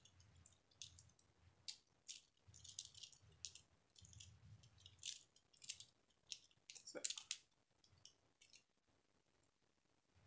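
Faint clicks and light rattling of a wired earphone set being handled and its earbuds fitted into the ears, with soft handling rumble; the loudest clicks come about seven seconds in.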